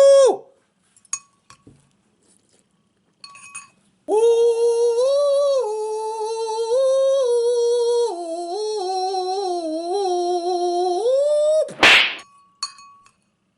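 A man humming in a high voice for about eight seconds, the pitch stepping up and down between held notes like a tune. It ends in a short loud 'woo!'.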